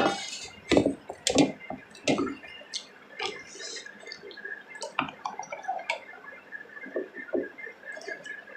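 Close-up eating sounds: chewing with repeated wet lip-smacking clicks and small mouth noises.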